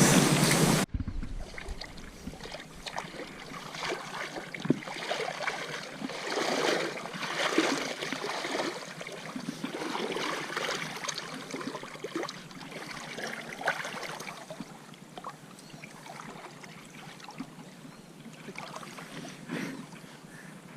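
Irregular sloshing and splashing of river water, coming in uneven swells about a second apart.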